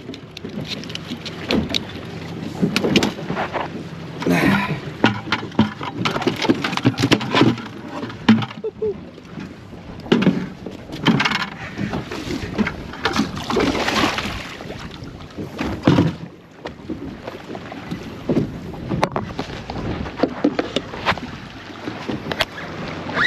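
Water slapping and sloshing against the hull of a small fishing boat sitting on choppy water, with irregular knocks and clicks from gear and fish being handled on deck.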